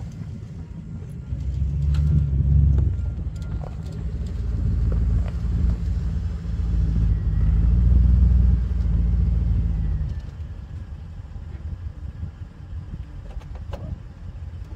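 A motor vehicle's engine running with a low, steady tone, swelling louder about two seconds in and again around eight seconds, then easing off after about ten seconds.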